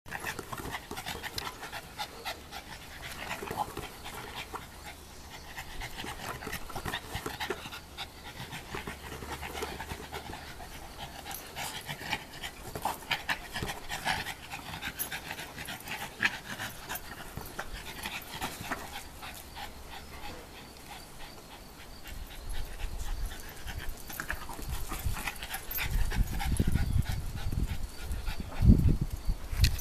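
Boston terrier panting while it plays with a basketball, with scattered short scuffs and taps. A low rumble rises near the end.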